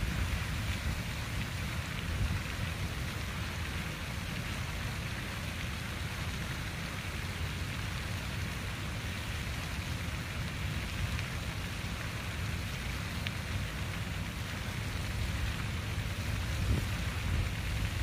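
Water fountain splashing steadily, a continuous hiss of falling water over a deep rumble.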